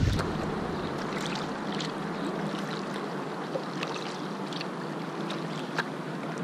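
Kayak paddle dipping into calm river water, with scattered drips and light splashes over a steady hiss of moving water.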